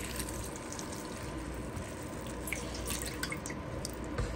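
Black liquid dye poured from a cup onto a skein of wool yarn in a metal pan: a quiet trickle with small drips and splashes, and a light knock near the end.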